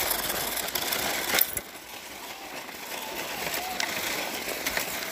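Crunching and scraping on packed snow from walking footsteps and a plastic sled being towed along, with a sharp louder scrape about a second and a half in, after which it goes quieter.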